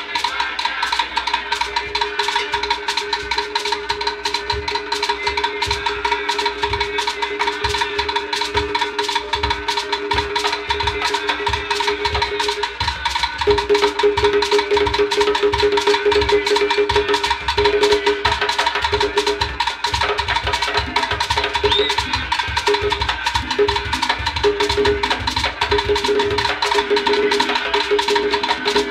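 Live Cuban rumba: a percussion ensemble playing a steady, driving rhythm, with sharp wooden clicks and a shaker over hand drums.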